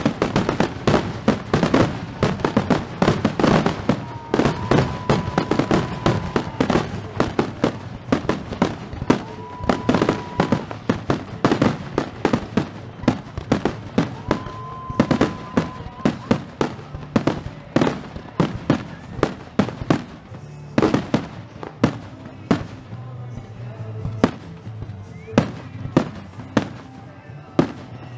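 Fireworks display: aerial shells bursting in a rapid barrage of overlapping bangs and crackles, several a second, thinning to spaced single bangs over the last third, with music playing underneath.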